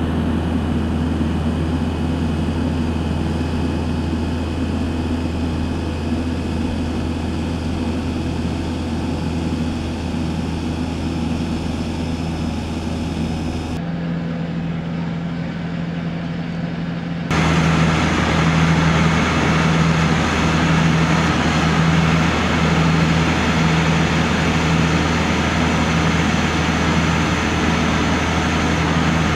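Tractor engine running steadily under load, driving a turf planer that is cutting down an infield lip and a conveyor loading the cuttings into a trailer. About 17 seconds in the sound jumps louder and closer, with a regular pulsing in the hum.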